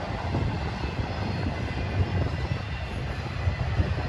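Double-stack container cars of a freight train rolling past, their wheels on the rails making a steady low rumble.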